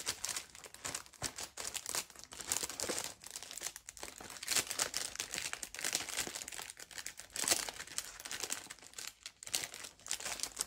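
Plastic packaging crinkling and rustling irregularly as it is handled and pushed back into place.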